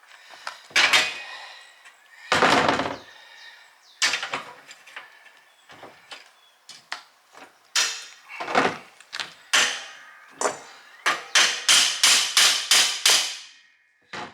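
Hammer blows on parts of a yard cart during repair: separate sharp strikes at uneven intervals, then a quick run of about seven strikes near the end.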